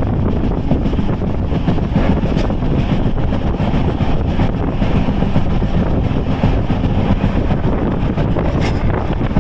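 Express passenger train running, a steady noise of wheels on the rails with wind blowing over the microphone.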